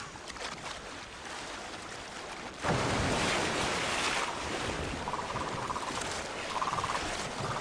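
Water rushing and splashing as bottlenose dolphins surge up onto a mud bank, driving fish out of the water in strand feeding. The surge starts suddenly about two and a half seconds in after a quieter wash of water, and its rush then fades back to a steady wash.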